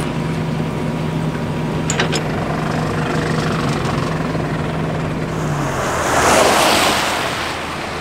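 A heavy truck engine idling with a steady hum that stops about three-quarters of the way through. A rushing hiss then swells and fades.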